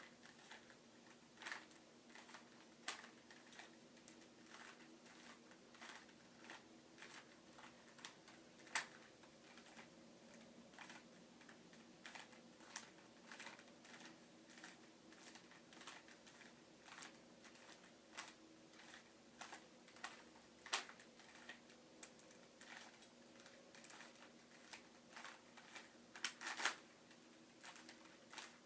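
A Rubik's Cube being turned by hand: quick, irregular plastic clicks and clacks as its layers are twisted, with a few sharper snaps, over a faint steady hum.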